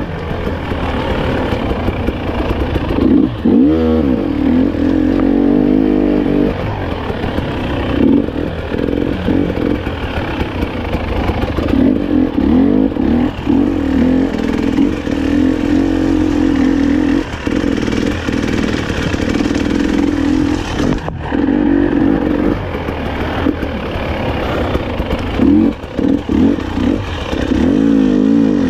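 Two-stroke enduro motorcycle being ridden hard, its engine revving up and down as the throttle opens and closes, with short drops in pitch where the rider backs off.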